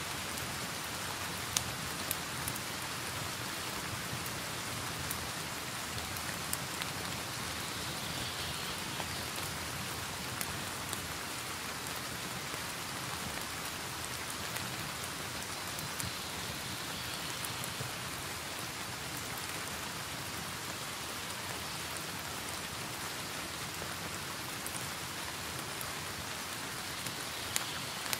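Steady rain falling in an even hiss, mixed with scattered sharp crackles and pops from a fireplace fire.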